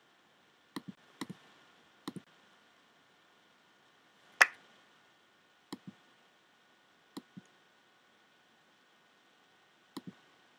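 Computer mouse button clicking, six times, each a quick press-and-release pair, with one louder, sharper single click or tap about four and a half seconds in.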